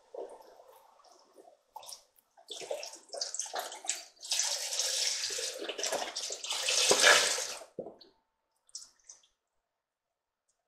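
Chicken stock poured from a carton into a pot of sautéed peppers and onions. A few irregular splashes come first, then a steady pour from about four seconds in, loudest just before it stops about eight seconds in.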